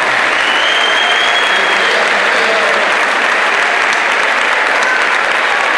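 Crowd applauding and cheering in a large hall, a steady wash of clapping, with one long high whistle about half a second in.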